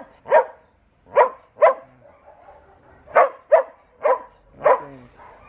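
Border Collie barking: seven short, sharp barks, some in quick pairs, with brief pauses between.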